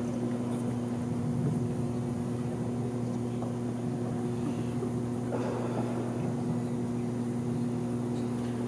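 Steady low hum with faint room noise during a pause in a speech, with a faint soft noise about five seconds in.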